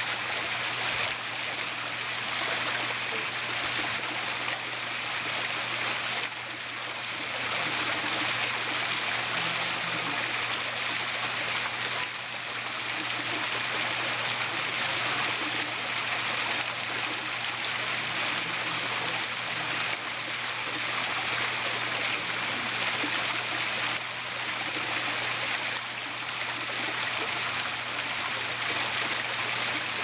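Small waterfall cascading over rocks: a steady, unbroken rush and splash of falling water.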